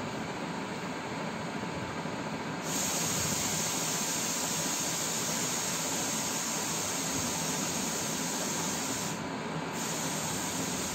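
A steady hiss with no clear single source. A brighter, higher hiss comes in suddenly about three seconds in and drops out for about half a second near the end.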